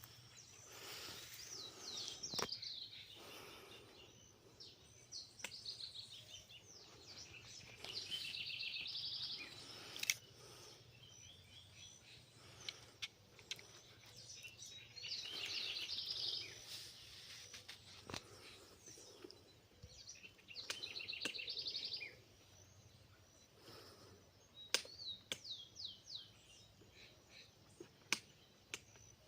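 Songbirds singing outdoors: short, rapid trilled phrases repeated every few seconds. A few sharp clicks are heard now and then.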